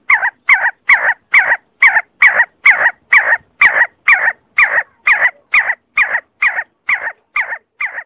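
See-see partridge calling: a fast, even series of short, falling whistled notes, about two a second, starting abruptly and running without a break.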